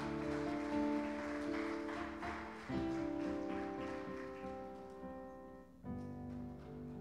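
Instrumental worship music of held chords, with no singing. The chord changes about three seconds in and again near six seconds.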